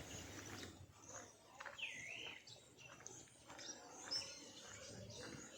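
Faint outdoor ambience with birds chirping: a whistled call that rises and falls about two seconds in, and a short high chirp about four seconds in.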